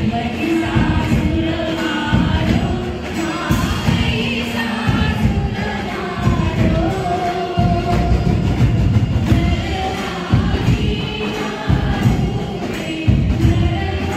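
A Hindu devotional aarti sung by many voices together over amplified live drums keeping a steady beat.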